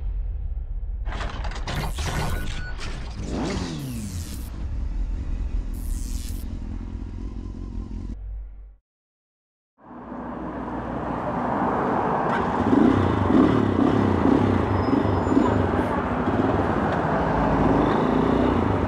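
Intro music with whooshing sound effects, cut to a second of silence. Then a Lifan X-Plore 200 enduro motorcycle's engine running in street traffic, picked up by a helmet camera.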